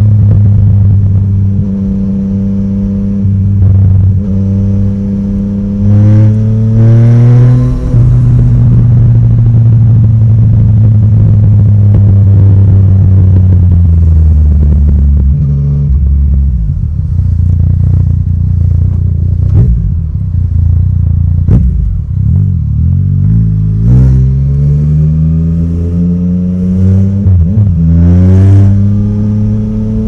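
Yamaha Tracer 900 GT's inline-three engine through an Akrapovic exhaust, pulling up through the gears: the pitch rises twice and drops sharply at each upshift, with steady running in between. In the middle, off the throttle, the exhaust gives a run of short sharp pops, the crackle the owner has noticed only since the bike's Woolich dyno retune.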